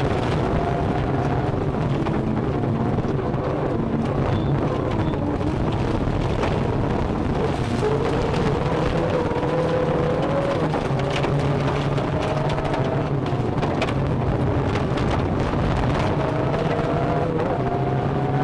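Toyota Corolla rally car's engine under hard acceleration, heard from inside the cabin. The engine note climbs through each gear and drops back at each change, about a third of the way in and again near the end. Short knocks and rattles from the car running over the gravel stage road come through over a low rumble.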